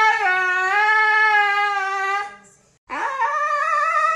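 Husky howling: one long held howl at a steady pitch that dies away a little over two seconds in, then after a short pause a second howl that opens with a quick upward swoop and holds.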